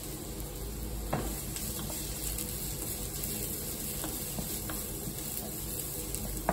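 Sliced mushrooms and garlic sizzling steadily in hot olive oil in a wok as they fry golden brown. A wooden spoon stirs them, giving a few light knocks against the pan.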